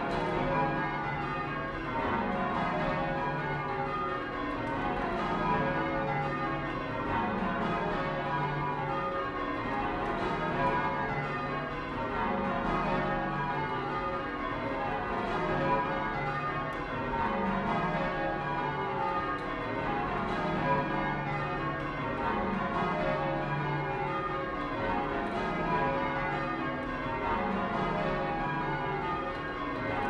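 Change ringing on a ring of twelve church bells, tenor 28-2-16 cwt in C#. Each row sounds as a quick run down the scale, with a new row about every two and a half seconds.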